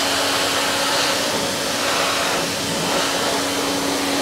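Giraffe Tools Grandfalls wall-mounted electric pressure washer running, its pump humming steadily under the loud, even hiss of the water jet from a 25-degree nozzle.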